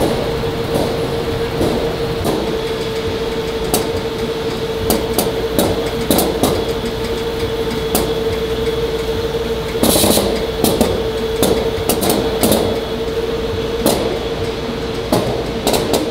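Seaweed-processing machinery running: vibrating stainless conveyors and feeders carrying dried seaweed flakes, a steady hum with a constant mid-pitched tone. Irregular clicks and knocks run throughout, with a denser clatter about ten seconds in.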